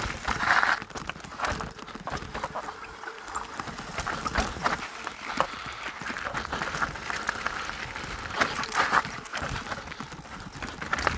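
Mountain bike rattling over a rocky trail: an irregular clatter of knocks and clicks from the tyres, chain and frame.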